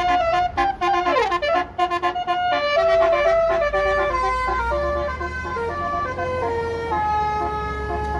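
Basuri telolet bus horn playing a fast melody of stepped notes, with a quick downward slide about a second in and longer held notes in the second half, over the low rumble of the bus engine.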